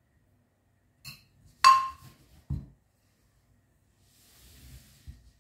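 A metal fork clinking against a ceramic plate of beaten egg: a light tap about a second in, then a sharper clink that rings briefly. Dull knocks follow as the plate is lifted and moved on the table, with a faint rustle near the end.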